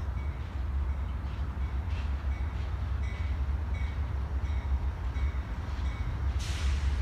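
A train rolling past with a steady low rumble and faint regular ticks, and a short burst of hiss about six and a half seconds in.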